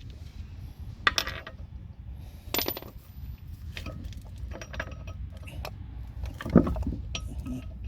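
Steel wheel bolts clinking and rattling as they are put back into a van's wheel hub and threaded in by hand. There are a handful of sharp metallic clicks spaced a second or so apart, and a heavier knock near the end.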